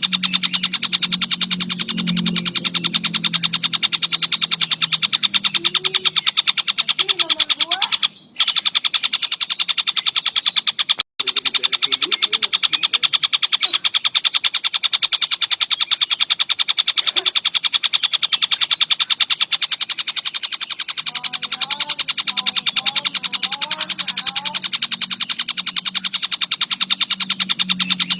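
A tengkek buto kingfisher calling in a fast, unbroken stream of sharp, high notes, cut off briefly twice, about 8 and 11 seconds in.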